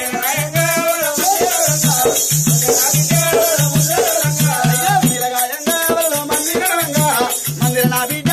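Oggu katha folk music: a singing voice over a steady drum beat and continuous metallic jingling of ankle bells.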